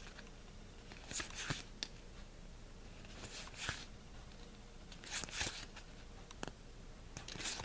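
Magic: The Gathering cards being flipped through by hand, a card sliding against the stack with a soft rustle about every two seconds.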